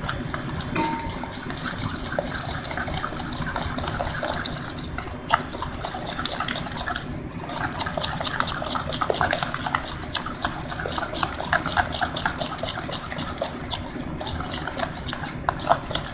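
A spoon stirring thin flour batter briskly in a stainless steel bowl: continuous wet sloshing with rapid small clicks and scrapes of the spoon against the metal.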